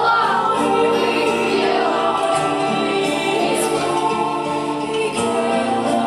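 Choral music: voices holding long, sustained chords that change twice.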